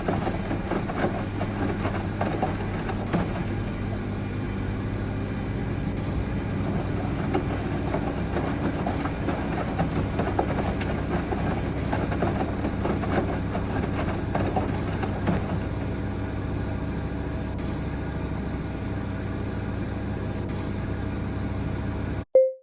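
LG F109 machine running steadily with a low hum and a rattly, grainy noise over it, then cutting off abruptly with a short click near the end.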